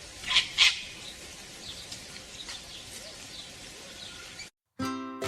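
A sulphur-crested cockatoo gives two loud, short screeches about half a second in, over outdoor ambience with faint chirps from small birds. The sound cuts off about four and a half seconds in, and ukulele music starts near the end.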